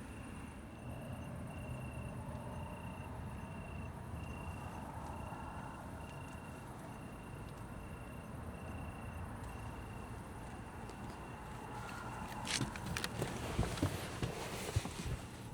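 Cricket chirping steadily in short even pulses, about two or three a second, over a low steady rumble; the chirping fades after about ten seconds, and a cluster of sharp clicks and knocks follows near the end.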